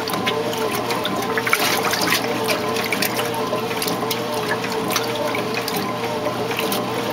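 Whirlpool-built 1968 Kenmore 900 series top-loading washer in its agitate cycle. The motor hums steadily while the agitator churns the wash water and clothes, sloshing and splashing.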